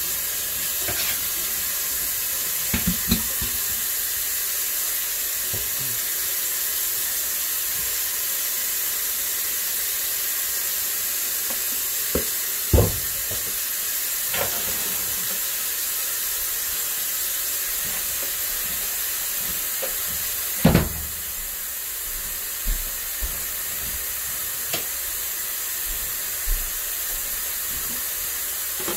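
Kitchen tap running steadily into a stainless-steel sink, filling it with soapy dishwater. A few short knocks and clinks from dishes being handled, the loudest about 21 seconds in.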